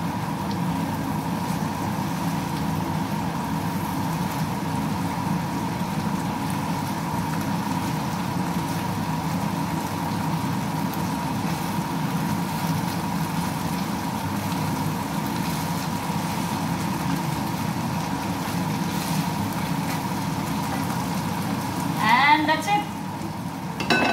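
Steady hum of a kitchen range hood fan over a frying pan of fish, chili and mint sizzling as a wooden spatula stirs it. Near the end a short pitched vocal sound cuts in.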